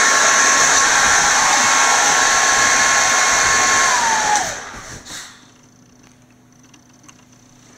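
Hair dryer running with a steady whine, switched off about four seconds in, its motor winding down in a falling whine. After that there is only faint rustling of the dog moving on the bedsheets.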